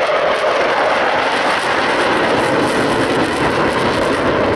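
Jet engine noise of a four-ship formation of F-16 fighters flying past: loud and steady, with a faint crackle.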